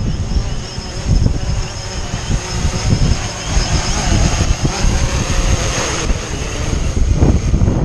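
Quadcopter drone's propellers whining at a steady high pitch, almost buried under heavy gale-force wind buffeting the microphone.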